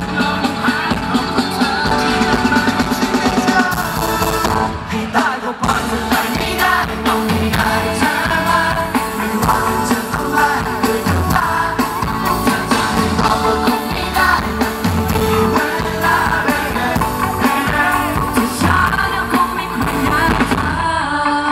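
Pop song performed live on stage, a male voice singing into a handheld microphone over the backing music.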